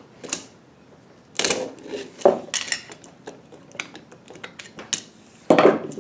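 Steel tools and a differential pinion gear clinking and knocking against each other and the wooden workbench while a screwdriver is worked at the pinion's bearing cage. A handful of sharp metallic clinks with gaps between, the loudest about a second and a half in and near the end.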